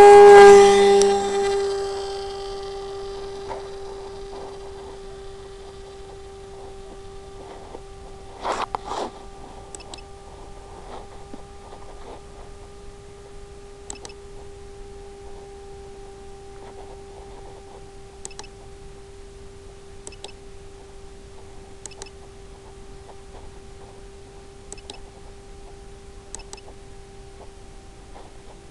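A steady hum holding one pitch, fading down over the first two seconds and then staying level, with faint clicks every second or two and a short louder crackle about eight seconds in.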